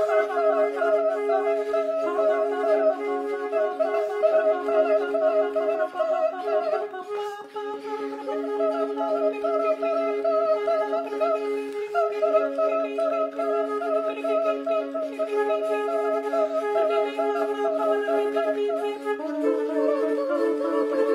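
Two concert flutes with soprano and countertenor voices holding long overlapping notes in close harmony, the chord shifting to new notes every few seconds.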